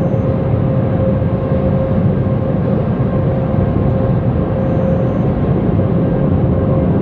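Automatic car wash machinery running: a steady rumble and rush with a constant hum.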